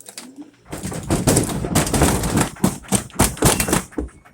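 LG WM0642HW front-load washer's drum banging loudly in a low-speed spin test: rapid, irregular knocks that start about a second in and stop just before the end. It is the sign of a loose inner drum, as the technician diagnoses it.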